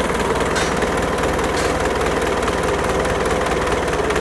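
Yanmar 4CHS-T four-cylinder turbocharged marine diesel engine idling steadily, with an even, rapid diesel knock.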